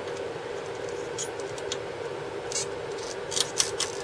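Soldering iron tip scratching and ticking against a circuit board's solder pads and component leads during desoldering: a scatter of small clicks that come thicker near the end, over a steady hum.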